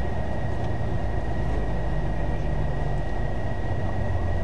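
A vehicle running at a steady speed, heard from on board: an even low rumble with a faint steady high whine above it.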